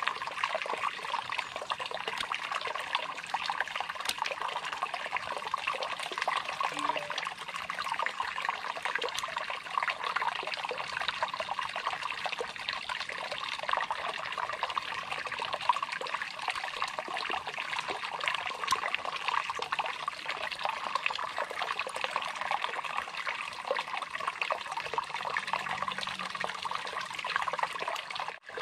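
Shallow stream trickling and babbling steadily over rocks.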